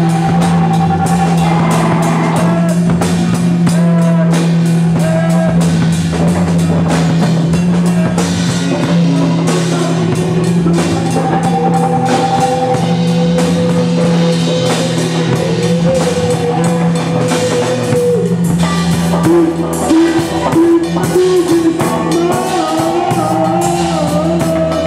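Live band improvising a loose, noisy rock jam: electric guitars, bass guitar and a drum kit with crashing cymbals. A low bass note is held steadily under wavering melodic lines, with the held note shifting about two-thirds of the way through.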